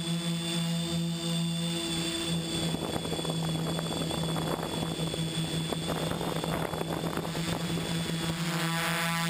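XAircraft X650 V4 quadcopter's electric motors and propellers droning steadily in flight. Several seconds of rushing noise join in through the middle.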